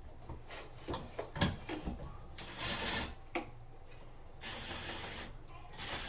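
Tool and hardware knocks and clicks, then two short runs of a cordless drill/driver, a steady whirring with a thin high whine, the second run the longer.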